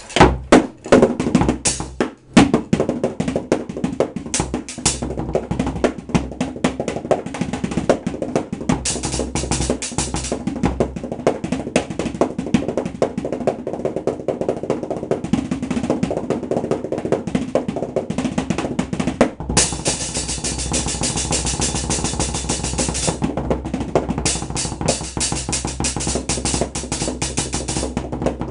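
Improvised drum kit made from trash tubs and buckets, struck with drumsticks in fast, busy beats and rolls. About twenty seconds in, a bright hissing wash sounds over the drumming for about three seconds.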